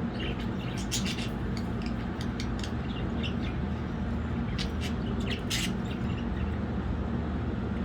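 Budgerigars chirping in short, scattered calls over a steady low background hum.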